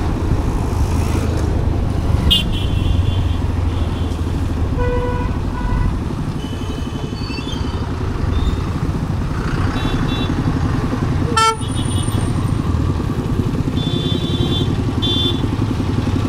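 Motorcycle engine running steadily under way in traffic, with vehicle horns tooting several times in short blasts, and one sharp click about two-thirds of the way through.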